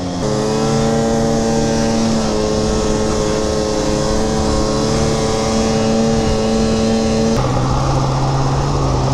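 Snowmobile engine running at steady high revs as the sled crosses snow, then dropping to lower revs about seven seconds in as the throttle eases off.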